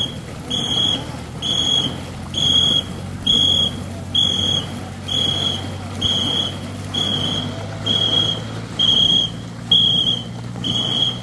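A whistle blown in short, even, high-pitched blasts, about three every two seconds, beating time for the paddle strokes of a ghe ngo long-boat crew at sprint pace. A low steady hum runs underneath.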